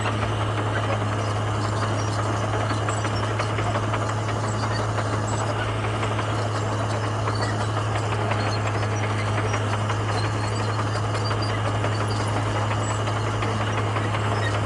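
Komatsu bulldozer's diesel engine running steadily under a constant deep drone, with mechanical rattle and noise layered over it.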